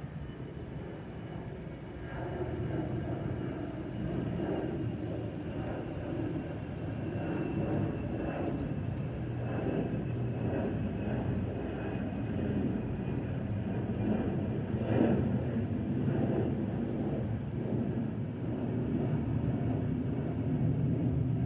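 Airbus A320's twin CFM56 turbofans at climb power after takeoff from Don Mueang, heard from the ground as the jet passes overhead: a steady dense roar that builds in loudness, with a faint high whine slowly falling in pitch.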